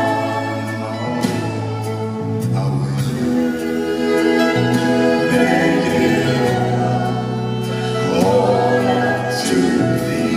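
Music: several voices singing long held notes together over instrumental backing.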